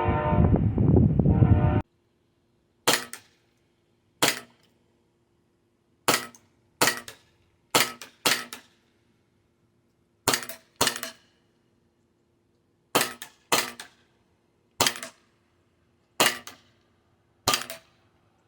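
VFC Glock 19 Gen3 gas-blowback airsoft pistol firing single shots, each a sharp crack with the slide's short clatter after it: thirteen shots at uneven intervals, some in quick pairs. They begin about 3 seconds in, after a louder stretch of other sound that cuts off abruptly.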